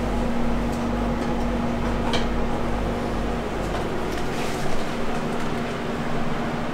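A PEEK 3D printer running, with a steady hum and fan noise under a constant tone. A low pulsing throb beneath it stops about two thirds of the way through.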